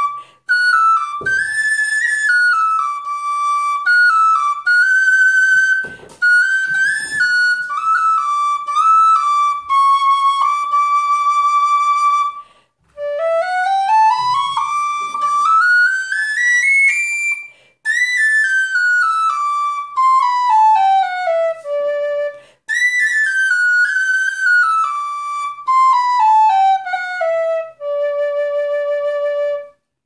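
Anak high D Irish tin whistle, the flat-fipple, aluminium-block version, played solo in short melodic phrases with brief breath gaps. About halfway through it runs up the scale over two octaves from low D to top D. It comes back down, then descends again and ends on a held low D.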